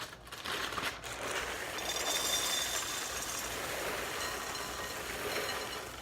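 Dry cereal poured from the box into a bowl: a steady rattling hiss that builds about a second in and tails off near the end.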